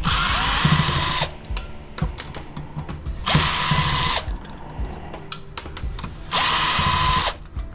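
A power drill or driver running in three short bursts of about a second each, backing screws out of a metal electronics chassis, with small clicks and rattles of parts between the bursts.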